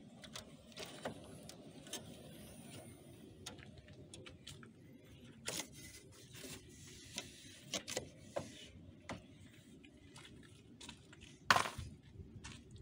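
Scattered light clicks, taps and rustling from hands working around a car's engine bay and plastic cowl, with one sharp, loud click near the end.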